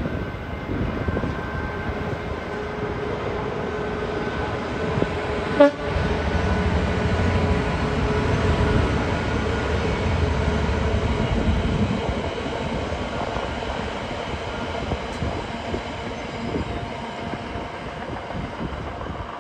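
GB Railfreight Class 66 diesel locomotive running as it hauls a container freight train past, its engine drone carrying steady tones over a low rumble. A sharp click comes about six seconds in, the rumble is loudest from then until about twelve seconds, and it then eases as the wagons roll by.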